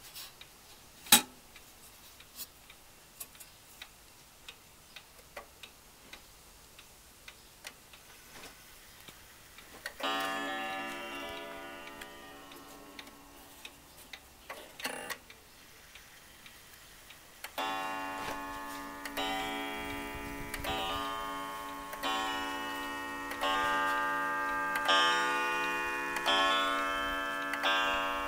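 Beacon school-house regulator wall clock ticking, a tick roughly every two-thirds of a second, while its hands are turned by hand. About ten seconds in it strikes one ringing stroke that slowly fades. From a little past halfway it strikes a long run of ringing strokes, about one a second.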